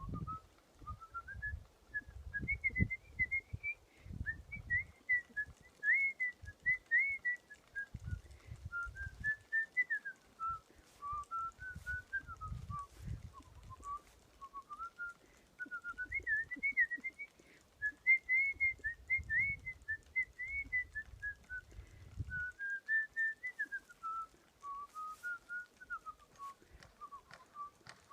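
A person whistling a melody: a single clear tone gliding up and down in flowing phrases. Soft low thumps come and go underneath.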